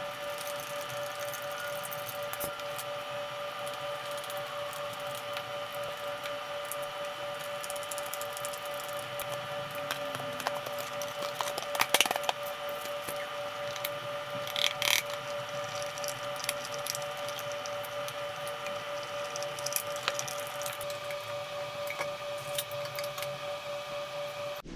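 Flat-pack cabinet being assembled by hand: scattered light clicks and knocks of a hand screwdriver and panels being handled, a cluster of sharper knocks about halfway through, over a steady hum.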